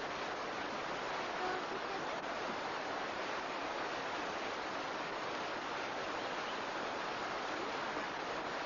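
Steady rush of water during heavy rains: an even, unbroken noise that holds the same level throughout.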